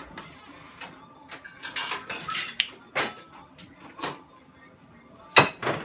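Kitchen handling sounds: scattered clinks and knocks of dishes and utensils at the counter and sink, with a plastic bag rustling about two seconds in. Two sharp knocks near the end are the loudest.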